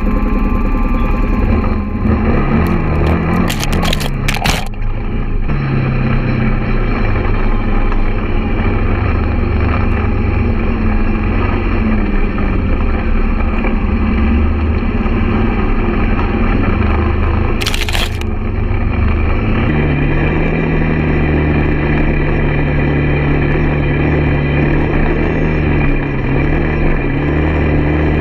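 Quad bike (ATV) engine running while being ridden off-road, with a few brief knocks about three to four seconds in and again around eighteen seconds. About twenty seconds in, the engine settles into a steadier tone.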